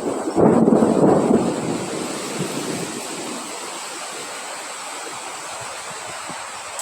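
Wind blowing, with a loud gust about half a second in that dies away over the next second or so into a steady rushing.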